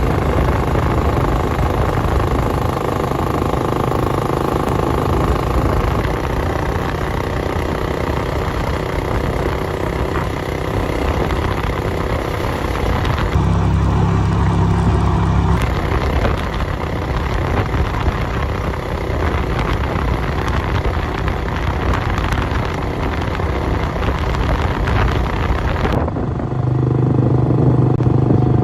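Motorbike running along a road: steady engine and road noise, with abrupt changes about halfway through and again near the end.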